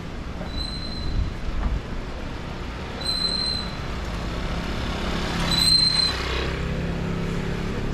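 Street traffic rumbling, with a short high beep repeating about every two and a half seconds and a hiss that swells up and fades about two-thirds of the way through.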